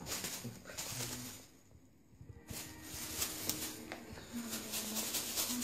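Thin plastic carrier bag crinkling and rustling in irregular crackly bursts, with a short lull around two seconds in.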